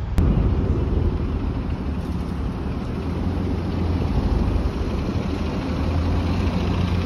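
AC Transit city bus engine running as the bus drives slowly past at close range, a steady low rumble.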